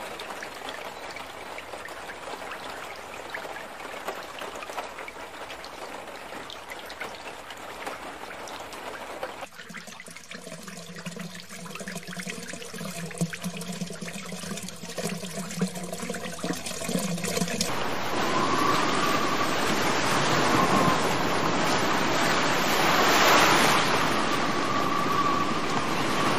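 Rushing floodwater, in three stretches that cut abruptly from one to the next: a swollen river surging, then water welling up through a flooded street, then a louder torrent.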